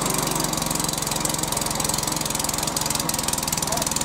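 Hyundai HYM430SPER lawnmower's 139cc petrol engine running steadily just after a cold electric start, with a fast, even firing beat.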